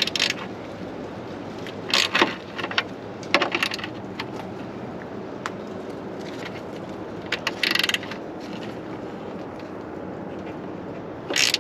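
Quarter-inch drive ratchet with an 8 mm 12-point socket clicking in about five short bursts as it is worked back and forth on a seized headlight bolt that will not break loose.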